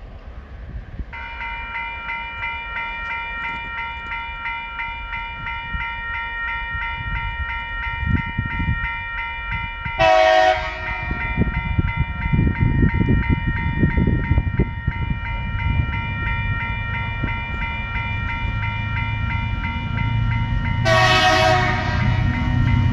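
Level crossing warning bells start ringing about a second in and keep ringing throughout. The approaching diesel locomotive TR01 sounds its horn twice: a short blast about ten seconds in and a longer one near the end. Under these, a low rumble from the train grows louder.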